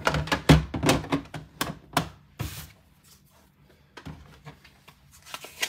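Hard plastic PSA graded card slabs clacking and tapping against each other as they are handled and set down. There is a quick run of sharp clicks in the first couple of seconds, then a few fainter taps.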